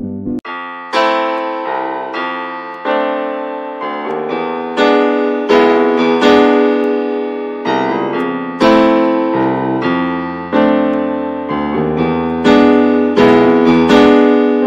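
Background piano music: notes and chords struck at an unhurried pace, each dying away before the next.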